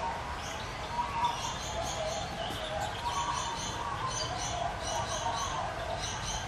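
Aviary birds chirping: short, bright, high notes in quick clusters of about three, repeating every second or two.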